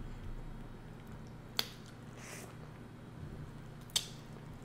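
A boiled head-on shrimp being peeled by hand close to the microphone: two sharp cracks of shell, one about a second and a half in and one near the end.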